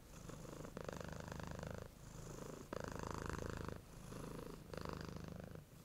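Domestic cat purring close to the microphone, a steady rhythmic purr that swells and dips with each breath in and out, about a second per breath.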